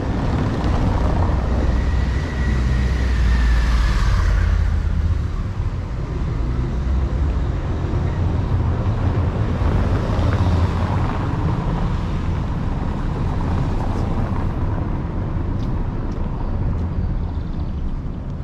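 A car driving past close by on a cobblestone street in the first few seconds, its tyre and engine noise swelling and then fading. A steady low rumble runs under it.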